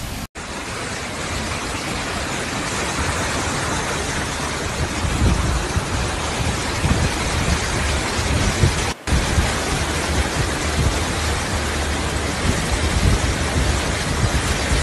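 Steady rushing noise of flowing floodwater and wind, with low gusty rumbles underneath. The sound cuts out briefly twice, just after the start and about nine seconds in.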